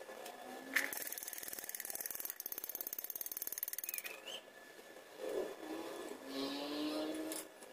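Stick (arc) welding on a steel pipe joint: the arc crackles and sputters in a fast, even pulsing, then stops about four seconds in, leaving quieter background with a few faint tones.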